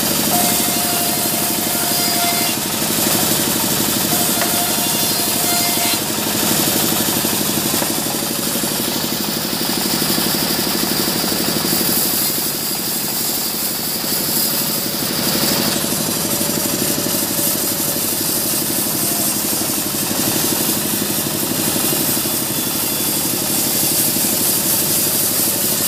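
Sawmill band saw running steadily while sawing planks of waru (sea hibiscus) wood, its drive a constant drone with a high hiss that swells and fades as the blade cuts.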